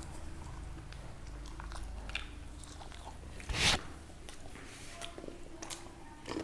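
Close-up eating sounds: a person chewing and biting food, with scattered small crunches and one louder bite about three and a half seconds in.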